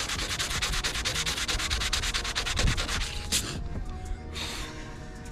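Sandpaper, 220 grit, scrubbed back and forth over the painted hood of a 1988 Jeep Cherokee XJ to feather out a dent before Bondo. It goes in quick, even strokes, stops a little after three seconds in, and comes back briefly about a second later.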